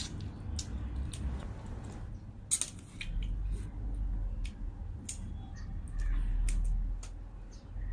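Cooked crayfish shells being cracked and peeled by hand: a scatter of small sharp clicks and crackles, over a low rumble that gets louder from about three seconds in.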